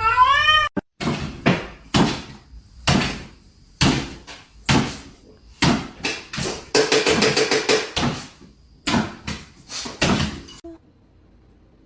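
A cat's meow trails off at the start, then repeated knocking and banging about once a second, with a quick rattle of knocks about two-thirds of the way through, stopping shortly before the end.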